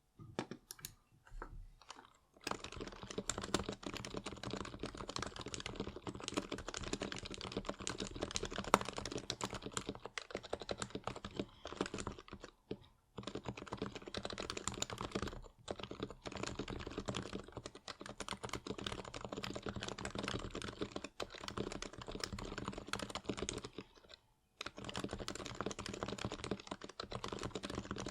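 Fast, continuous typing on a Topre electro-capacitive keyboard (Norbauer Heavy Grail on an HHKB Pro Classic PCB with 55g Realforce domes and lubed purple sliders, blank HHKB keycaps), its keystrokes muted. A few separate keypresses come first, then steady rapid typing with short breaks about a third of the way in, near the middle and near the end.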